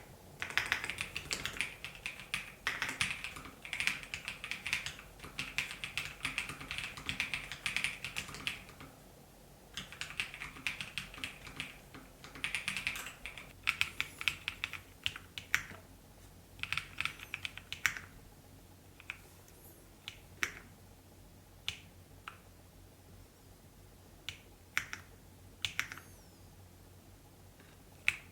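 Typing on an EPOMAKER x LEOBOG K81 mechanical keyboard. Rapid keystrokes clatter continuously for the first nine seconds or so, then come in short bursts. Over the last third they thin out to single key presses.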